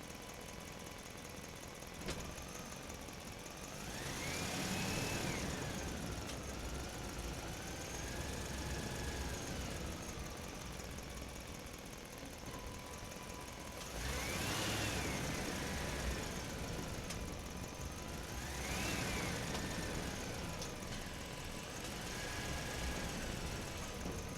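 Excavator's diesel engine running, with a whine that rises and falls three times as it works under load.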